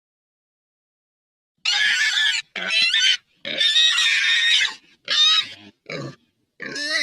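Creature sound effect: a series of six short, shrill animal-like calls that waver in pitch, starting about a second and a half in, the last still going at the end.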